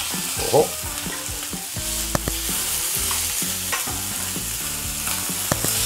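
Trout fillets sizzling in olive oil in a hot non-stick frying pan, with a few sharp clicks of metal tongs against the pan as the fillets are turned.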